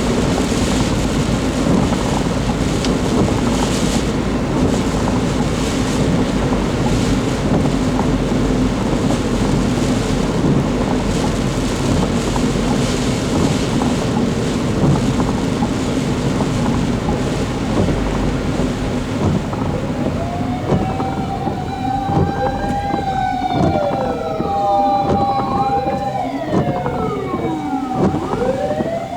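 Steady rushing noise of typhoon wind and road traffic. From about two-thirds of the way in, emergency vehicle sirens wail, several of them overlapping, each sliding up and down in pitch.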